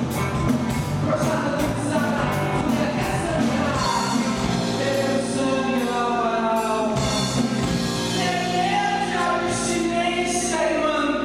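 Live rock band with a woman singing lead over electric guitar, bass guitar and drums. A steady beat through the first few seconds gives way to held chords under her voice.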